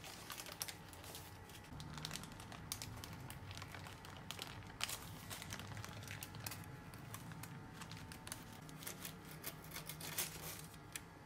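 Parchment baking paper crinkling and rustling in irregular small crackles as it is handled and peeled from a baked sponge cake.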